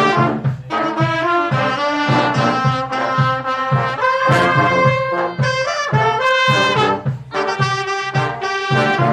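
Brass band playing live: trumpets and trombones on held and moving melody lines over a low bass line that repeats in an even beat.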